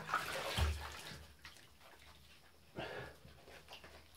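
Wet squishing and rubbing as shampoo lather is worked into a soaked cat's fur by hand in a bathtub. It is loudest in the first second and a half, then quieter.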